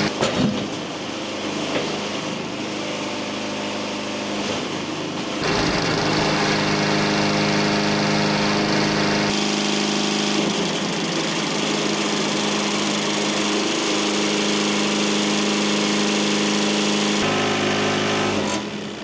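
Wood-Mizer LT70 portable band sawmill running steadily as its blade cuts slowly through a poplar log, the blade being somewhat dull. The sound changes abruptly a few times and fades away at the very end.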